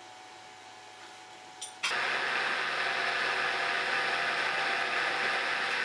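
Milling machine switched on with a click, its spindle motor then running steadily at speed about two seconds in, ready to drill out a stuck pin.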